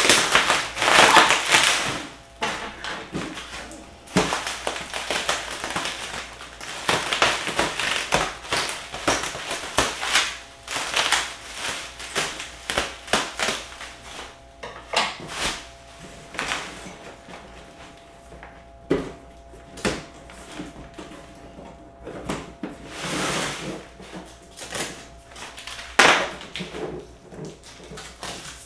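Cardboard box and its packing being handled and pulled apart: irregular rustling, crackling bursts and sharp knocks, busiest in the first couple of seconds, with a single sharp knock near the end.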